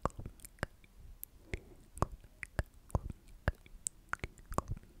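Close-miked mouth sounds: wet lip smacks and tongue clicks at an irregular pace, about four a second, with no words heard.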